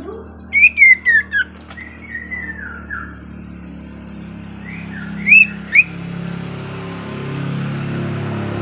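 Sirtu songbird calling: loud, clear whistled notes that drop sharply in pitch, in a quick cluster near the start, softer ones a little later, and two more about five seconds in. A steady low hum grows louder under them from about six seconds in.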